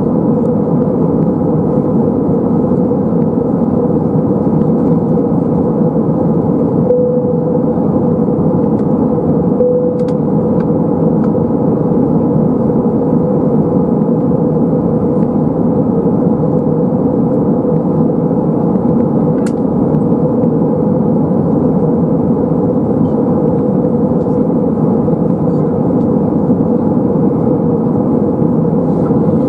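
Steady cabin noise of an Airbus A320-232 airliner in flight, heard from a window seat over the wing: the continuous drone of the jet engines and rushing airflow, with a steady mid-pitched hum running through it.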